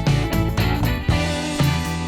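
Background music with a steady beat and strummed guitar.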